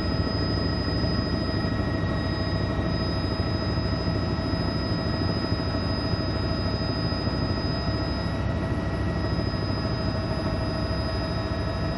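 Steady helicopter noise: a constant low rumble with several unchanging high whines over it, as in a cabin recording from a news helicopter.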